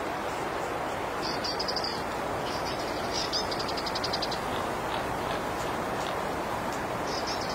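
Steady wind noise, with a small bird chirping high above it about a second in, a quick trill around three to four seconds in, and more chirps near the end.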